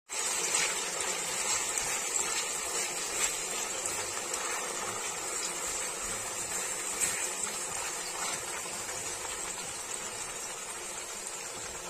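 Chicken pieces sizzling steadily in hot oil in a frying pan while being stirred with a silicone spatula, with a few sharp clicks.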